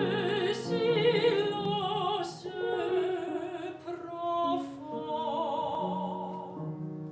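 Operatic singing: sung voice with wide vibrato over held accompaniment notes.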